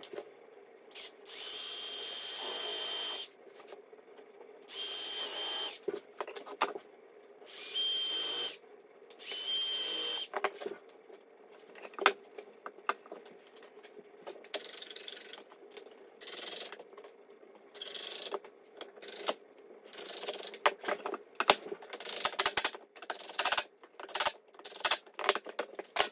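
Cordless impact driver driving screws into pine framing lumber: four long runs of hammering with a steady high whine in the first ten seconds or so, then many short bursts and clicks as more screws are run in and set.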